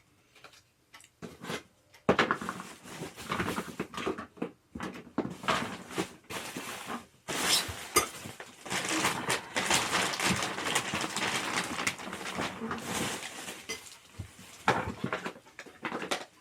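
Gaming-chair parts being handled and fitted together during assembly: irregular clattering, knocking and scraping of hard parts. Sparse clicks at first, busy continuous clatter from about two seconds in, thinning to a few knocks near the end.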